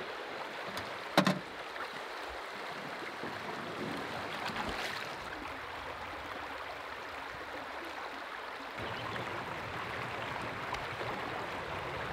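River water rushing over a cascade as a steady hiss, with a single sharp knock about a second in. The rush gains a lower rumble about nine seconds in.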